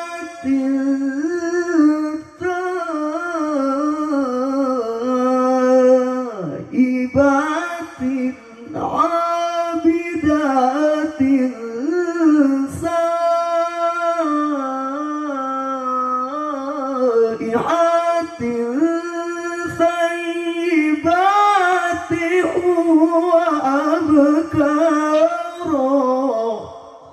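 A male qari reciting the Quran in melismatic tilawah style into a microphone over a PA sound system. He holds long notes with wavering ornaments that climb and fall, with a few brief breaks for breath. The phrase ends right at the close.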